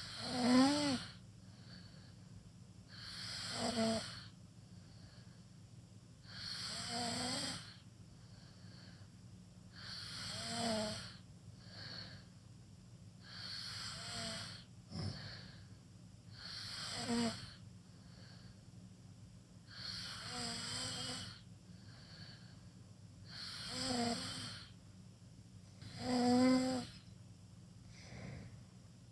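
A sleeping teenager snoring with his mouth wide open: nine snores, one on each breath, coming about every three and a half seconds.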